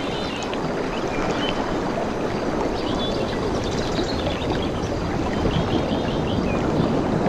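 Ocean surf making a steady rush of water, with small birds chirping in short, scattered notes over it.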